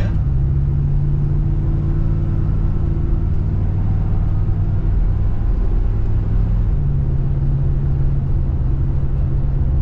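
Car interior driving noise: steady engine hum and tyre rumble on the highway, the engine note dipping slightly about five and a half seconds in and coming back up about a second later.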